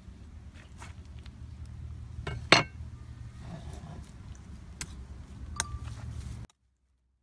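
Metal spoon clinking against a ceramic bowl as a pork and egg mixture is stirred, a few separate clicks, with one sharp knock about two and a half seconds in, over a low steady hum. The sound cuts off suddenly near the end.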